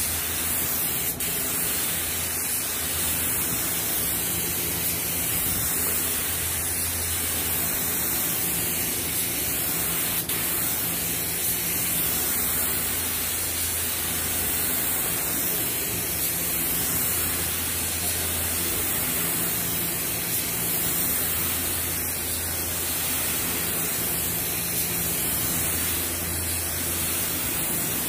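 Compressed-air spray gun with a suction-feed cup atomising black matte automotive lacquer: a steady hiss of air and paint mist.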